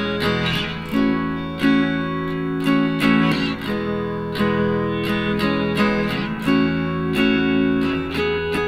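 Background music on acoustic guitar: plucked notes and chords in a steady, unhurried rhythm.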